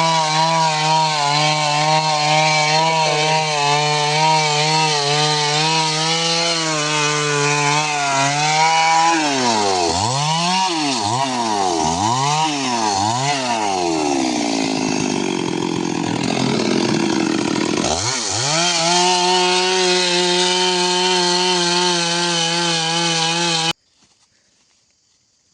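Chainsaw cutting wood, running at a steady high speed. About nine seconds in, its pitch dips and recovers three times, then it runs lower and rougher for a few seconds before settling back to a steady speed. The sound cuts off abruptly near the end.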